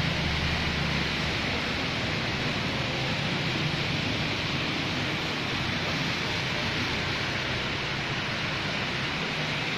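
Steady hiss of heavy rain falling on a flooded street. A low hum fades out about a second in and comes back near the end.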